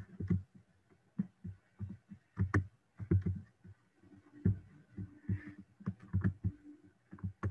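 Soft, irregular low thumps and clicks, a few a second, over a faint steady hum.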